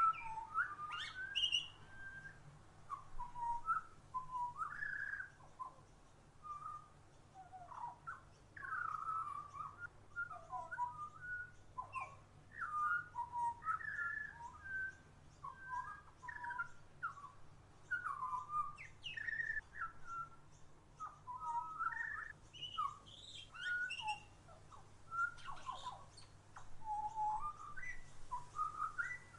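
Songbirds chirping and calling almost without pause: a quick run of short notes that slide up and down in pitch.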